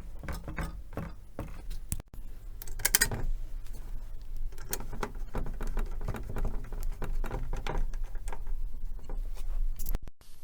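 Quick, irregular clicks and taps of small parts being handled over a steady low hum, broken by a short cut about two seconds in.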